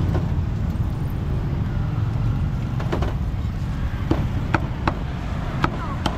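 Cleaver chopping roast pork on a thick wooden chopping block: sharp single chops beginning about three seconds in, about six of them, over a steady low rumble of street traffic.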